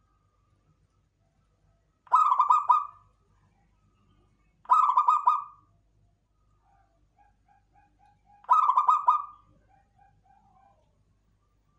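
Local zebra dove (perkutut lokal) cooing: three loud, rapidly pulsed song phrases about two to three seconds apart. Between the second and third phrase, and after the third, it gives runs of soft, lower, evenly spaced notes.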